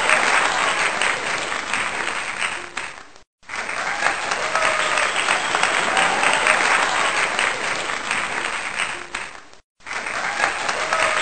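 Crowd applause with faint cheering, fading out about three seconds in, starting again, and fading out and starting again once more near the end.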